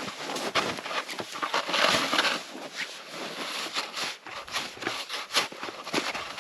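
Snow crunching and scraping in irregular strokes, with a longer, denser scrape about two seconds in.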